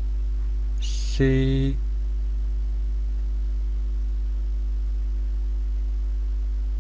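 Steady low hum, with one short spoken syllable a little over a second in.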